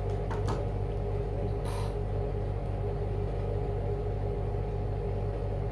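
Steady low electric hum, with a few light clicks and a brief rustle from handling the thread and machine parts.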